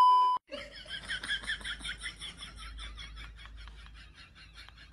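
A brief, loud electronic beep, then a rapid, high-pitched laughter sound effect: a fast string of 'ha' pulses, about six a second, that slowly fades away.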